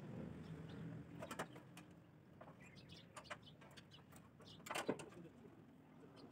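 Quiet yard ambience of small birds chirping, with a couple of sharp clicks about a second in and a louder knock near five seconds, from work on the tractor.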